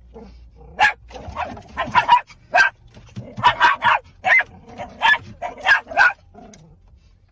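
A dog barking repeatedly in short, sharp barks, some in quick runs of two or three, stopping shortly before the end.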